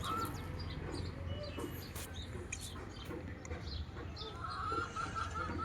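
Chickens clucking, with small birds chirping. Near the end a fast run of repeated chicken calls begins.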